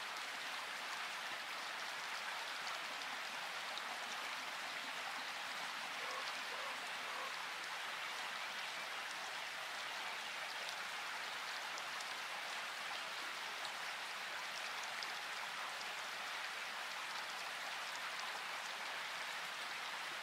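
Steady water noise: an even hiss of rain or rushing water at a constant level, with no single splashes or other sounds standing out.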